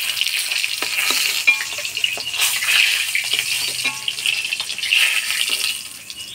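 Hot oil sizzling in a kadai as fried eggs are lifted out with a steel ladle, with frequent clicks and scrapes of the ladle against the pan. The sizzle fades near the end.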